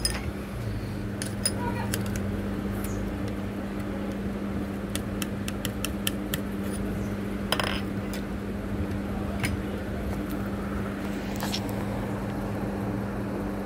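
Light metallic clicks and taps from a Juki sewing machine's needle bar and hook parts being moved and adjusted by hand: a few scattered, with a quick run of them about five to six seconds in. A steady low hum runs underneath.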